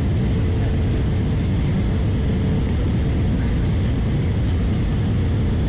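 Steady low rumble of airflow and engines in the cabin of an Airbus A320-214 with CFM56 engines on approach, with a faint steady hum above it.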